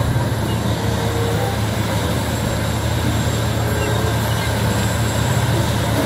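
Large Komatsu crawler bulldozer working: its diesel engine runs steadily under load while the blade pushes broken rock, with a dense, even mix of engine, track and rock noise.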